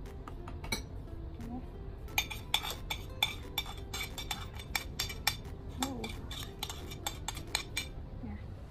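Metal spoon clinking and scraping against a ceramic plate and bowl as chocolate sweetened condensed milk is scraped off the plate into brownie batter. The clinks come in a quick irregular run, several a second, starting about two seconds in, over faint background music.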